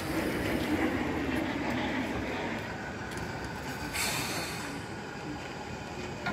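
Narrow-gauge saddle-tank steam locomotive moving slowly up to its carriage to couple on, with steam hissing from around its cylinders and a sharper burst of hiss about four seconds in.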